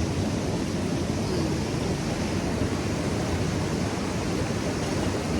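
Steady rushing noise, even throughout, heaviest in the low end with a flickering rumble.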